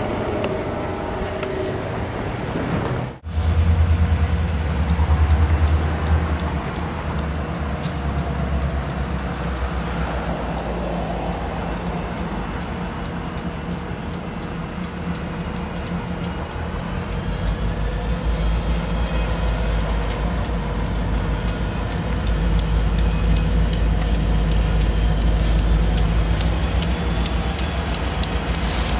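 Diesel-electric locomotives of a CSX freight train rumbling steadily as they approach, growing louder near the end. The sound cuts abruptly from a different train scene about three seconds in.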